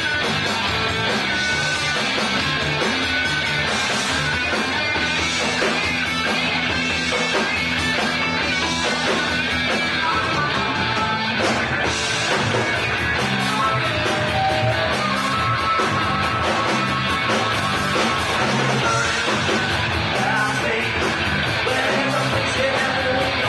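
Live rock band playing loudly: electric guitars, bass and drums, with a singer on the microphone.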